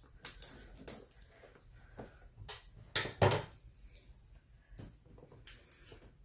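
Shrink-wrapped cardboard box being handled: scattered crinkles and light taps, with one louder knock about three seconds in as the box is set down flat.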